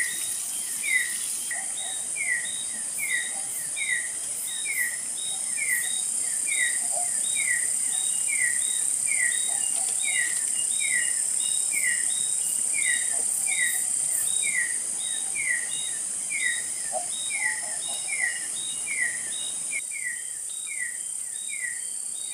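A bird's short falling chirp, repeated steadily about once every three-quarters of a second, over a constant high-pitched insect drone of forest crickets or cicadas.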